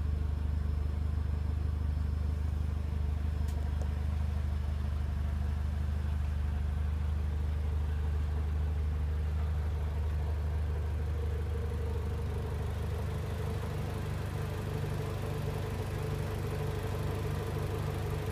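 Renault Mégane RS's engine idling steadily: a low, even hum, with a higher note growing a little stronger about twelve seconds in.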